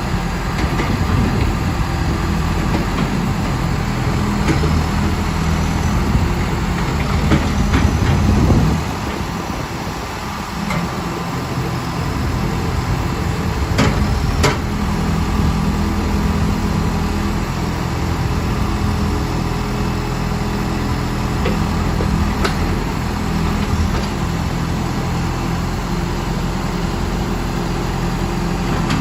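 Backhoe loader's diesel engine running, working harder for the first eight seconds or so, then dropping to a steady lower running note. A couple of sharp clicks come about halfway through.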